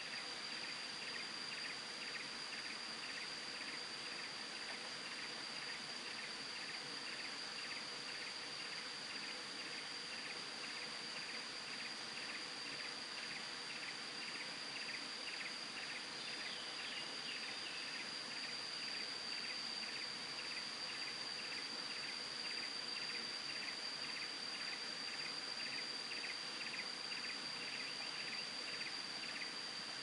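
Steady, high-pitched insect whine with a regular chirping a couple of times a second, and one brief higher call about halfway through.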